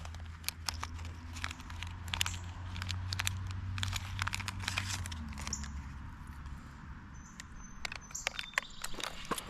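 Scattered crackles and knocks of handling noise on an action camera's microphone, over a low steady hum that fades out about five to six seconds in.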